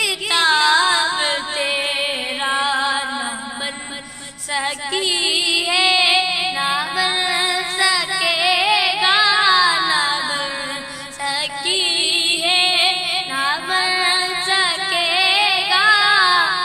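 A boy singing an Urdu naat solo, in long held notes that waver and slide between pitches.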